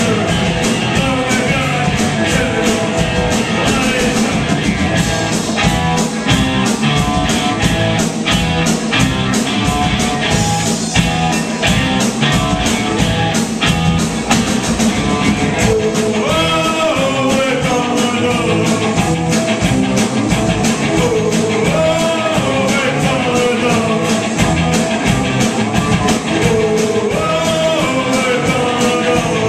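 Live rock band playing a song, loud, with a lead vocal over drums keeping a steady beat.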